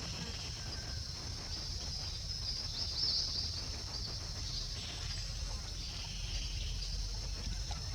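Outdoor ambience: a steady high-pitched insect drone, swelling briefly about three seconds in, over a constant low rumble.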